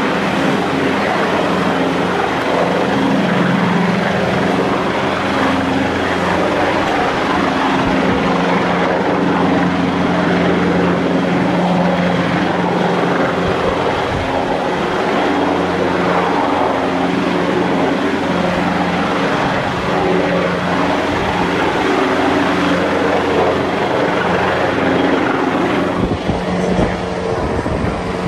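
Rescue helicopter hovering near the cruise ship: a steady, loud rotor and engine drone over a dense rush of gale-force wind. About 26 seconds in, the sound changes abruptly.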